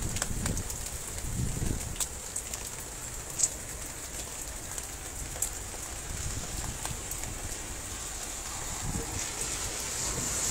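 A heavy downpour of rain and hail pours down steadily, with a few sharp taps of stones striking, the loudest about three and a half seconds in. Gusts of wind rumble on the microphone.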